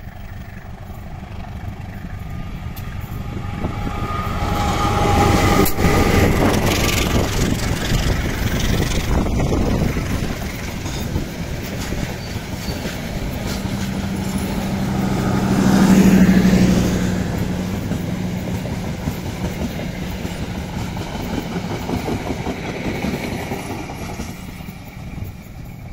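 Passenger train passing close by: the diesel-electric locomotive's engine builds to its loudest about five seconds in, then the coaches roll past with a steady rumble of wheels on rail that swells again about halfway through and fades as the train moves away.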